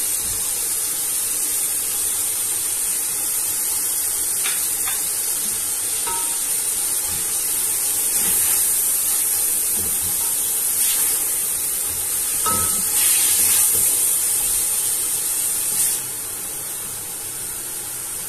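Chopped cabbage, capsicum and carrots sizzling in oil in a steel pot while a spatula stirs them, scraping and knocking against the pot now and then. The sizzle drops suddenly near the end as the flame is turned low.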